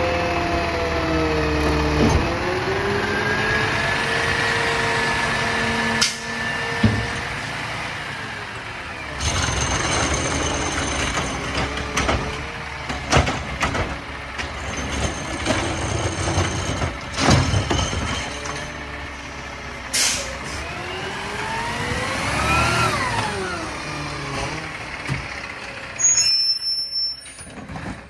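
McNeilus ZR automated side-loader garbage truck emptying curbside carts: the engine and hydraulics rise and fall in pitch as the arm grabs, lifts and shakes out a cart, with a string of sharp knocks as it dumps. Air-brake hissing, and a short loud burst near the end before it goes quieter.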